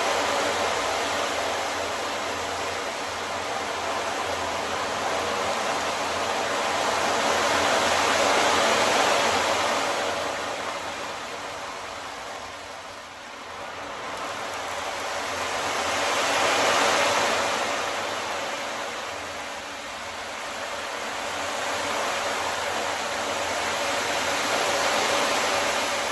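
Ocean drum tilted slowly back and forth, its beads rolling across the head in long surf-like swells that rise and fade about every eight seconds.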